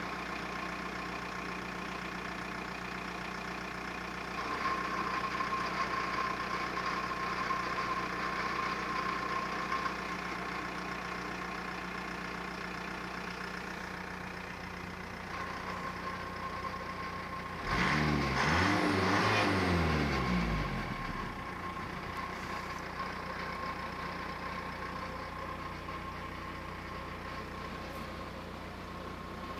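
Seat Toledo's 1.9 TDI (AFN, 110 hp) four-cylinder turbodiesel idling steadily, heard from inside the cabin, with one short rev lasting about three seconds, roughly two-thirds of the way through.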